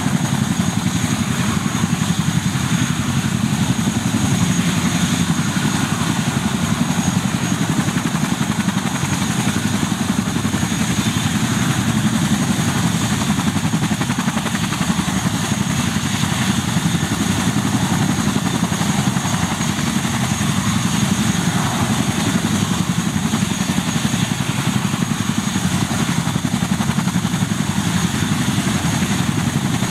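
Boeing CH-47 Chinook helicopter running on the ground with its twin tandem rotors turning and its turboshaft engines running. It is a steady, loud, rapid rotor beat with a constant high turbine whine, holding even throughout.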